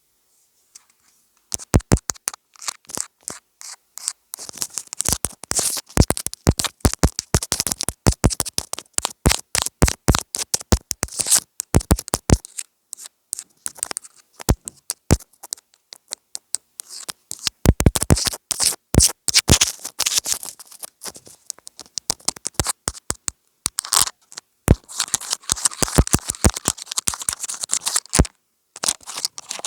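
Rapid, irregular tapping and scratching on a homemade ASMR gadget, in quick runs with short pauses, with a longer stretch of scratching near the end.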